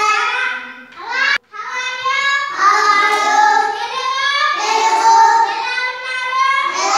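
A class of young children chanting in unison in a sing-song tone. The sound cuts out for an instant about one and a half seconds in.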